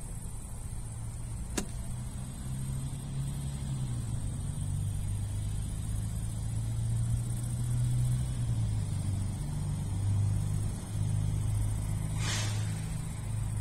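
Low, steady drone of vehicle engines from road traffic, with its pitch shifting slowly. A single sharp click comes about a second and a half in, and a short hissing swish comes near the end.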